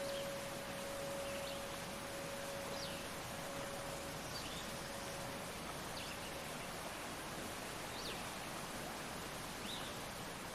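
Small forest waterfall rushing steadily into a pool, with a bird giving a short chirp about every second and a half. A steady ringing tone dies away about halfway through.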